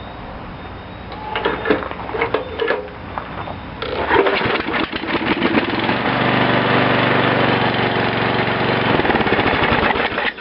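8 hp Briggs & Stratton single-cylinder mower engine being pull-started: a few seconds of clatter from the recoil starter, then about four seconds in it catches on gas squirted into the carburetor and runs steadily for about five seconds before stopping. That it runs at all shows the ignition gives at least a weak spark, though none could be seen on the spark testers.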